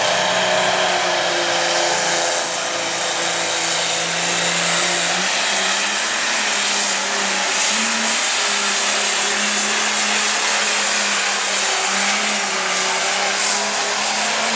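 Light pro stock pulling tractor's turbocharged diesel engine running flat out under load as it drags the weight sled, loud and steady, its pitch stepping up slightly about five seconds in. A faint high whine rises early on.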